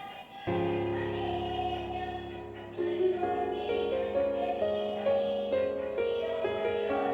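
Background music. One track ends and a new piece starts about half a second in with held notes, and a melody enters near three seconds.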